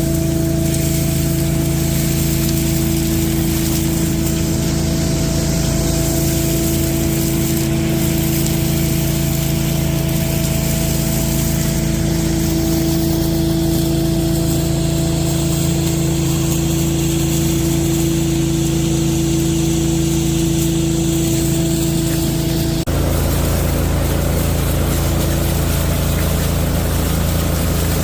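Giant industrial debris vacuum, its 35-horsepower engine and blower running steadily with a constant whine over a low hum. About 23 seconds in the sound changes abruptly: the whine drops out and a rougher, noisier running sound takes over.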